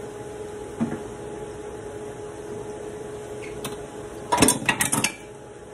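Kitchen utensils clattering: a single knock about a second in, then a quick run of sharp clatters near the end, over a steady low hum.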